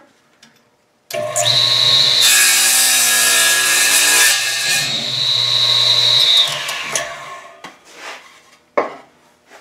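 DeWalt radial arm saw switched on, its motor running with a steady hum and high whine. The blade crosscuts a half-inch board for about two seconds. The saw is then switched off and its whine winds down, with a short knock near the end.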